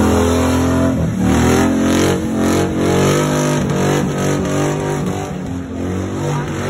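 Pickup truck engine revving hard through a burnout, its pitch dropping about a second in, then climbing and falling again and again as the throttle is worked.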